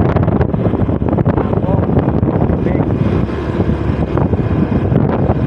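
Wind buffeting the microphone over the steady running noise of a moving vehicle.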